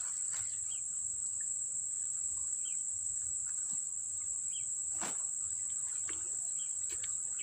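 Insects trilling in a steady, continuous high-pitched drone, with a few faint short chirps and one sharp click about five seconds in.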